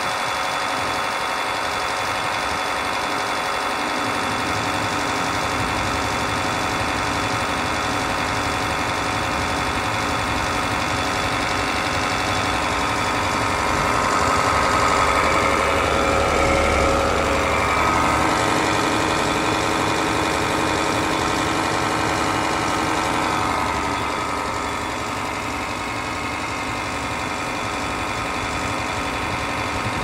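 Heat pump outdoor unit running: the compressor and condenser fan make a steady machine hum with several held tones, a noise the title puts down to the compressor. It grows somewhat louder for a few seconds midway, then eases.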